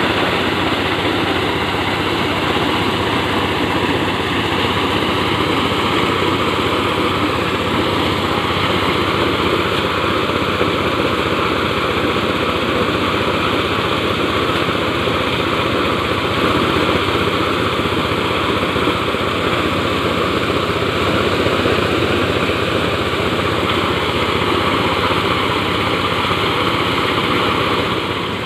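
Engine-driven corn sheller running steadily under load, its drum stripping kernels from the cobs as the kernels stream out of the chute.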